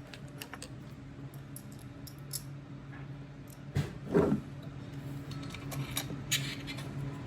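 Scattered light clicks and rattles of small metal parts being handled and fitted, over a steady low hum.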